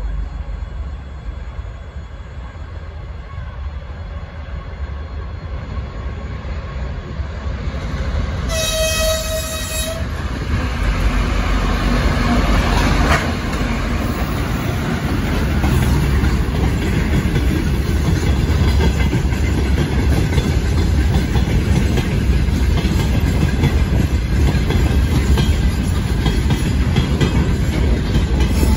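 Two-section 2TE10MK diesel freight locomotive, with Kolomna 5D49 diesel engines, approaching and giving one horn blast of about a second and a half some eight seconds in. Its engines then pass close by, followed by the steady rumble and clickety-clack of open freight wagons rolling past.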